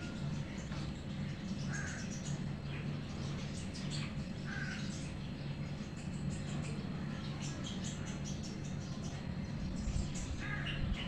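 A steady low hum with three short bird calls, at about two seconds, four and a half seconds and near the end, over faint light ticking and rustling.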